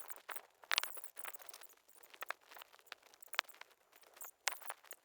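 Irregular clicks, taps and rustles of cables and plastic connectors being handled and plugged in inside a PC case, with a few sharper clicks standing out.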